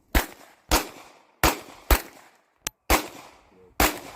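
Handgun shots fired in steady succession, six in about four seconds, each with a short echoing tail.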